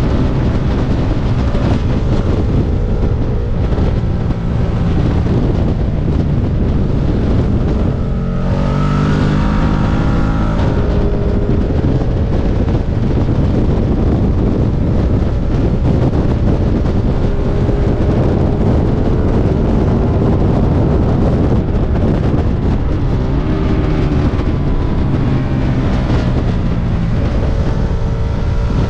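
Ducati motorcycle on its stock exhaust, ridden hard on a racetrack: the engine note climbs and falls as the rider works the throttle and gears, over a heavy rush of wind on the bike-mounted microphone.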